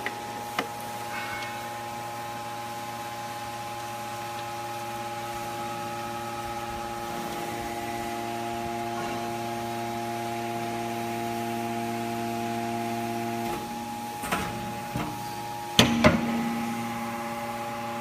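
Hydraulic power unit of an Enerpat T125 three-ram scrap metal baler running with a steady hum. Its tone changes about thirteen seconds in, then come several sharp metallic clunks, the two loudest close together about sixteen seconds in.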